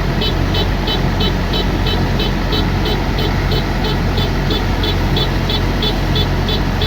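Kubota DC108X combine harvester running steadily, with a short high beep repeating about three times a second over the engine.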